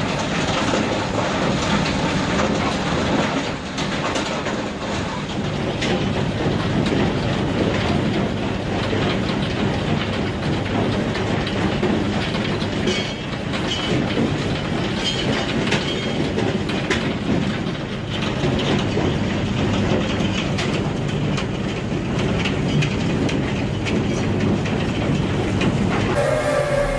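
Stone-crushing plant running: a jaw crusher and belt conveyors carrying crushed rock, a steady, dense clatter and rattle of stones and machinery. Near the end it cuts abruptly to a different machine with a steady whine.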